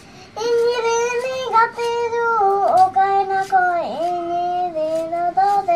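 A young boy singing without accompaniment, in long held notes that twice swoop down in pitch and back up.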